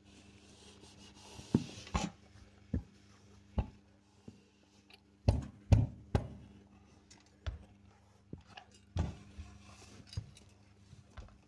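Electric clothes iron knocking and sliding on a cloth-covered worktable as it presses fabric and is set down, with a dozen or so irregular dull knocks, the loudest in the middle, and some rubbing of hands on the cloth, over a faint steady hum.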